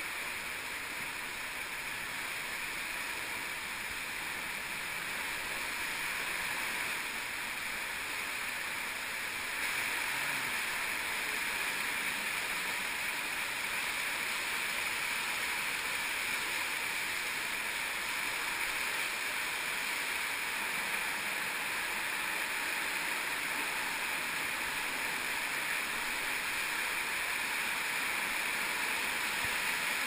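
Steady rush of a cave stream flowing over the rock floor, mixed with the splash of boots wading through it; it gets a little louder about ten seconds in.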